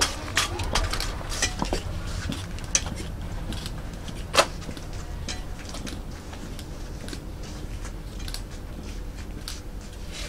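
Footsteps in 6-inch stiletto-heeled platform boots (Pleaser Blondie-3000): sharp heel clicks at a walking pace, the loudest about four seconds in, growing fainter and sparser after that.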